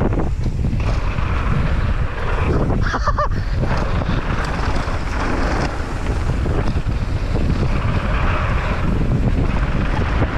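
Heavy wind buffeting the microphone over the rumble of a mountain bike's tyres on a dirt trail, ridden downhill at speed. About three seconds in comes a short pitched squeal.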